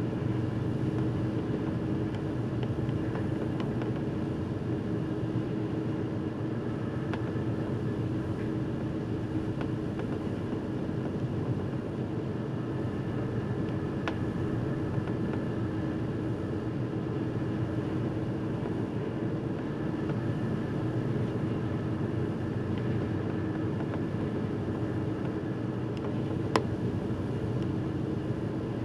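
Steady drone of a car ferry underway, its engines and machinery humming evenly under a constant rushing noise. One sharp click near the end.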